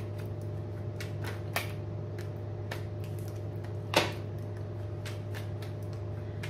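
Tarot cards shuffled by hand: light scattered flicks of the cards, with one louder knock about four seconds in as the deck is tapped down on the table. A steady low hum runs underneath.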